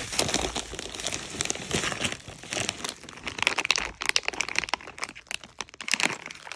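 Packaging being handled and unwrapped by hand, crinkling and rustling with many small irregular crackles.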